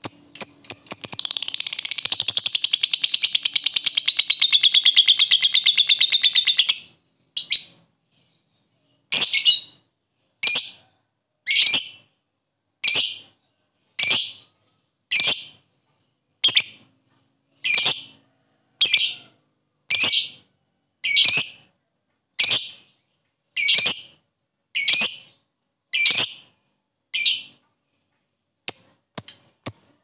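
Lovebird giving a long, rapid chattering trill, the 'ngekek', for about six seconds. After a short pause it follows with a steady series of short, sharp, high chirps about one a second, which come faster near the end.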